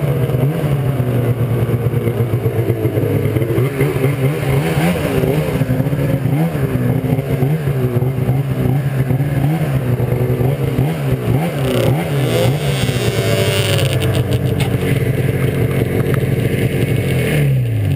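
Arctic Cat snowmobile engine running at low speed, its pitch wavering up and down with small throttle changes as the sled creeps along. Near the end the revs fall away as it slows to a stop.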